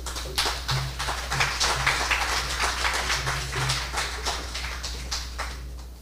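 Audience applauding: many hands clapping in a dense patter that thins out and fades near the end.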